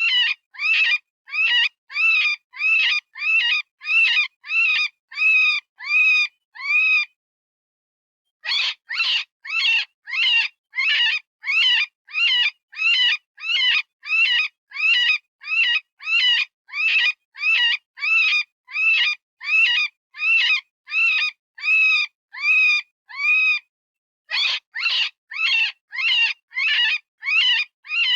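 Synthesized rabbit distress call, the kind used in predator calling: short, high, screaming cries repeated about two a second, each bending up and then falling in pitch. The series breaks off for about a second and a half after roughly seven seconds, and again briefly near the end.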